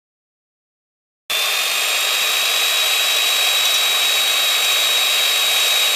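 Corded electric chainsaw running at full speed, a steady high-pitched whine that starts abruptly just over a second in.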